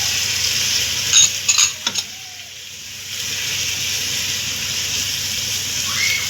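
Chopped turnip, onion and chard sizzling as they fry in oil in a cooking pot, with a few sharp clinks and knocks about a second in. The sizzle briefly dies down after them, then picks up again and runs on steadily.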